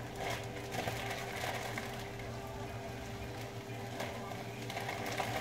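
Shredded cabbage shaken from a plastic bag into a hot skillet: the bag crinkles and the food sizzles softly in the pan, over a steady low hum.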